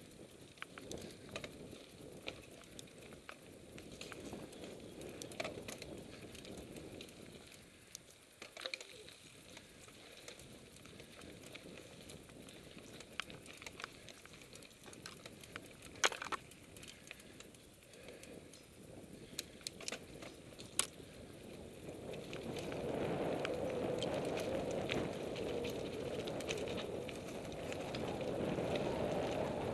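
Mountain bike riding fast along a dirt forest singletrack: a steady rumble of tyres on the trail with sharp rattling clicks over bumps. The rumble grows louder about two-thirds of the way through as the pace picks up.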